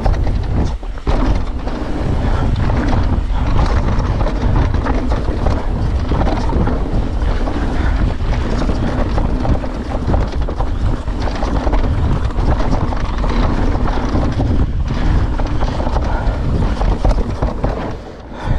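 Wind buffeting the microphone as a YT Decoy e-mountain bike rolls fast down a dirt singletrack, with the tyres rumbling over the ground; it eases a little near the end.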